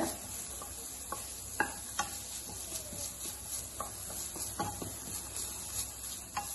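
Sliced red onions sizzling gently in butter in a non-stick pan, stirred with a wooden spatula. Scattered light taps and scrapes of the spatula against the pan stand out over the soft sizzle. The onions are softening but not yet browned.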